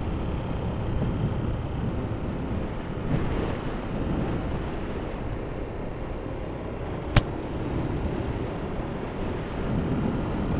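Steady wind and road noise from riding on a motorcycle, with wind buffeting the microphone. A single sharp click comes about seven seconds in.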